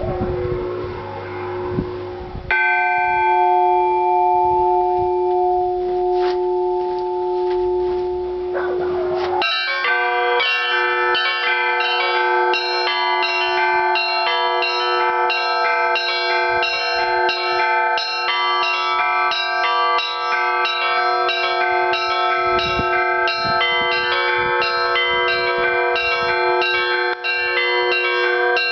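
Russian Orthodox church bells ringing: a deeper bell rings on and is struck again about two and a half seconds in. From about nine seconds in the full peal joins, with small bells chiming rapidly over the steady deeper bells.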